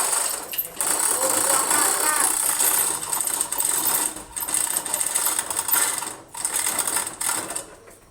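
Loud, continuous mechanical rattling in long runs, broken by short pauses about half a second, four seconds and six seconds in, dying away just before the end.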